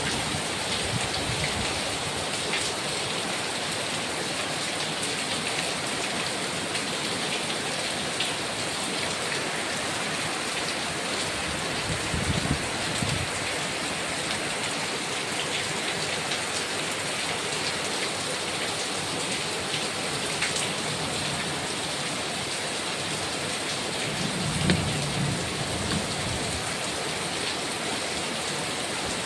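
Heavy rain falling steadily, with scattered sharp drops striking close by. There are two brief low rumbles, one a little before the middle and one near the end.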